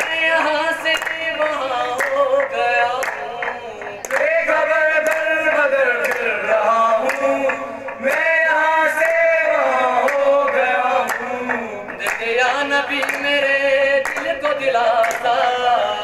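Male voices singing a qawwali, a lead singer with a group of young men, over hand claps keeping a steady beat.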